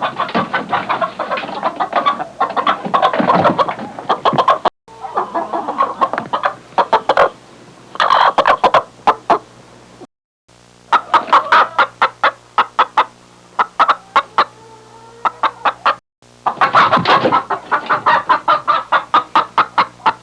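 Domestic hens clucking in quick, rapid series. It comes as several separate recordings joined end to end, with brief silent breaks between them.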